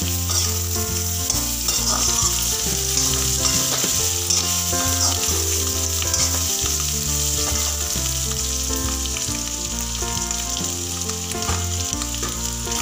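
Potato pieces sizzling as they fry in hot oil in a kadhai, while a slotted steel spoon stirs and scrapes them around the pan.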